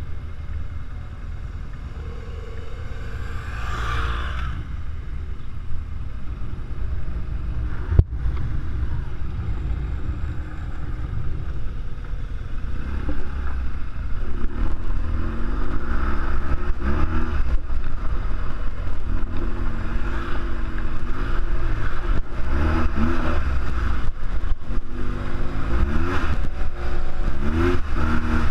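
BMW R1200GS Adventure's boxer twin engine being ridden on gravel, its pitch rising and falling again and again as the throttle is opened and closed, louder in the second half, over a steady low rush of wind. A single sharp click about a third of the way in.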